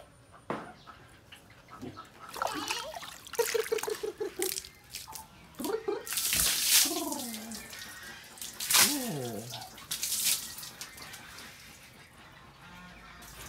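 Water from a hose spraying and splashing onto a pig in several spurts, with a pig's grunts and falling squeals between and over them.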